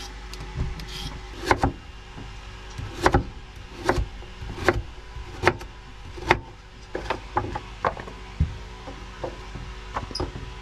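A large kitchen knife chopping yam on a wooden cutting board: sharp knocks roughly once a second, lighter and closer together after about seven seconds. Near the start, a few scrapes of a vegetable peeler on a carrot.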